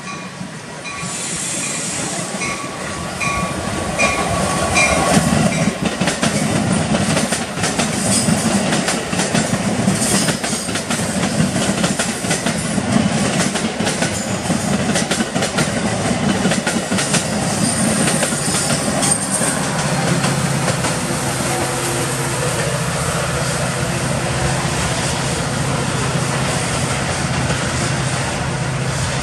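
Metra commuter train of bilevel coaches passing close on the near track, its wheels clattering over the rails, while an autorack freight train rolls on alongside. The sound builds over the first few seconds, and a steady low engine hum sets in about two-thirds of the way through.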